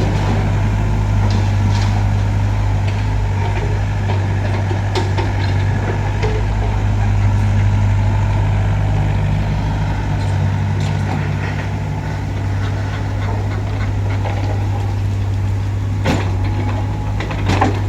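Heavy diesel engine of construction machinery running steadily at an even speed, with a couple of short sharp knocks near the end.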